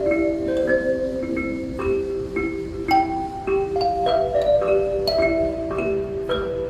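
Music: ocarinas play a slow melody in held, pure-sounding notes, in two or three parts, over bright mallet-percussion notes struck about twice a second.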